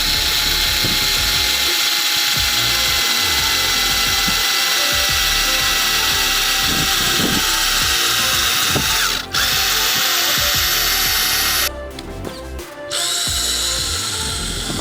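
Black & Decker 12 V cordless drill running with a steady motor whine. It cuts out briefly about nine seconds in, stops again near twelve seconds, and starts up again about a second later.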